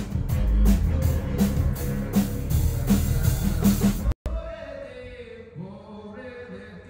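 Rock band playing live through a stage PA during a sound check: drum kit with regular cymbal hits over heavy bass. It cuts off abruptly about four seconds in, followed by quieter voices.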